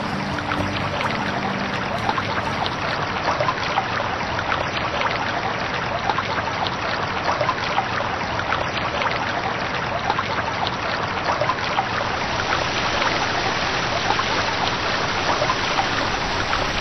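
Running water trickling and bubbling steadily, a dense patter of many tiny splashes.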